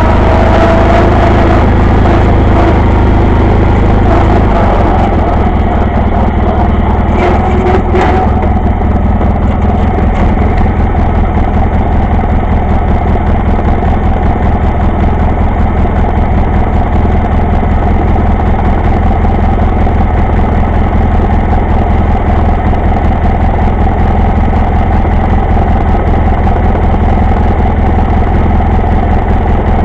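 John Deere 318 lawn tractor's Onan two-cylinder air-cooled engine running. It drops a little in level about four seconds in, then idles steadily.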